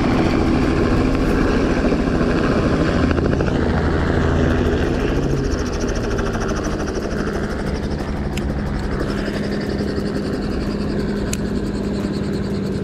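Two helicopters flying low and close overhead, their rotors chopping steadily. Loudest for the first few seconds, then a little quieter as they move off.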